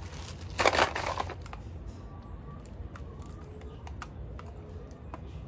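Thin plastic bag rustling, loudest in a burst about half a second in, then quieter crinkles and a scatter of small clicks and taps as hands fumble with the bag and a makeup compact.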